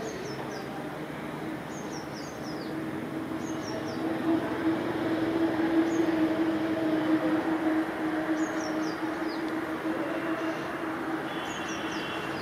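Distant EMD WDP-4D diesel locomotive's 16-cylinder two-stroke engine working as it hauls a passenger train up a gradient: a steady drone that grows louder about four seconds in. A bird calls every few seconds with short falling chirps.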